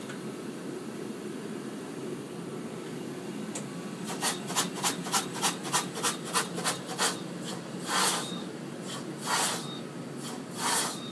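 Steady low hum of projection-booth machinery. About four seconds in comes a quick run of about ten short scuffs, roughly three a second, then three longer rubbing sounds near the end.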